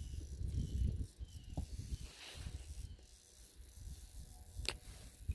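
Wind rumbling on the microphone, with a soft hiss about two seconds in and one sharp click near the end.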